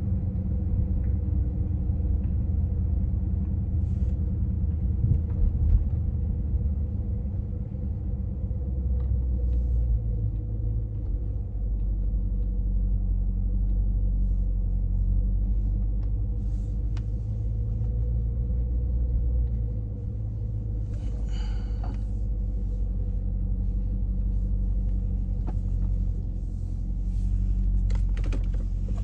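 Car engine and road noise droning inside the cabin while driving, the low engine note swelling and easing a few times.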